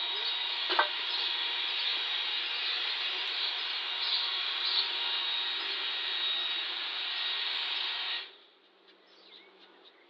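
Hot-air blower, such as a hair dryer or heat gun, running steadily to dry fresh paint on a small wooden piece, then switched off about eight seconds in.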